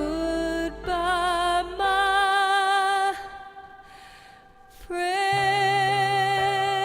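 Music: long wordless sung notes with vibrato over a soft backing, dropping away briefly midway, then one long held note.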